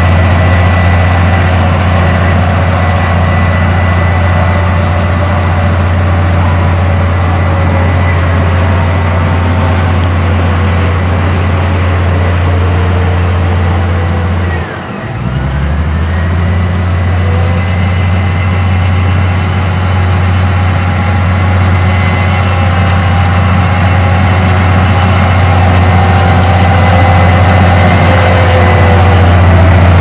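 Komatsu D58P crawler bulldozer's diesel engine running steadily as the machine pushes wet soil, with a deep even hum and a faint whine above it. The sound drops out briefly about halfway through, then resumes.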